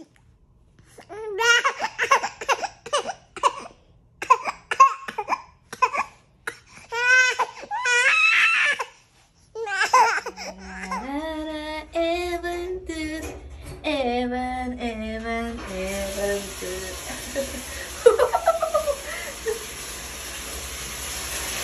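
A baby laughing in many short, squealing bursts, followed by longer drawn-out vocal sounds. In the last few seconds a steady hiss comes in with a few faint voice sounds.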